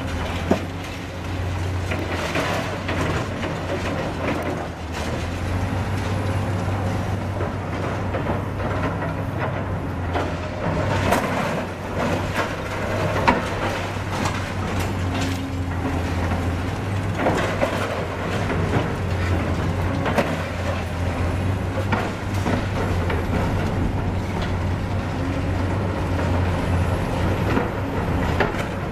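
Heavy diesel Caterpillar demolition excavators running steadily at working speed while tearing down a concrete building, with broken concrete and debris crashing and clattering down at intervals. A sharp crash comes about half a second in and another near the middle.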